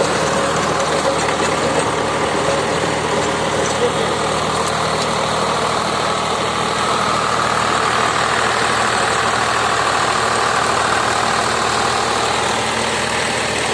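Swaraj 744 tractor's three-cylinder diesel engine running steadily under heavy load, driving a rotavator lowered to full depth as it churns through the soil.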